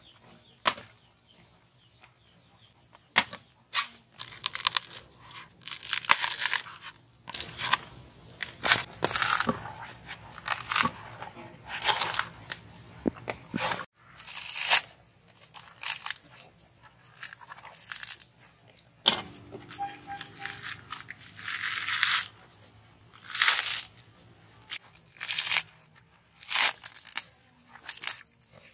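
Fibrous husk of a mature coconut being pried and torn away by hand, the coarse fibres ripping in repeated pulls of a second or two each. A few sharp knocks of a knife blade striking the husk come in the first few seconds.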